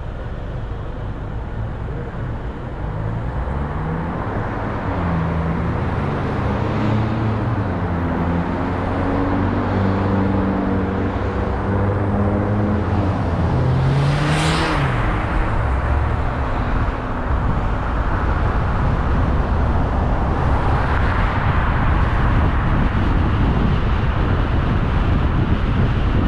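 A car pulling away from a standstill, its engine pitch climbing in steps through the gear changes, then settling into steady tyre and road noise while cruising. About halfway through there is a brief rush as another car passes close by.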